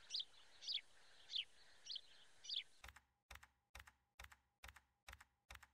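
Faint animation sound effects: five short, high chirps about every half second, each falling in pitch, then a steady run of sharp clicks about twice a second.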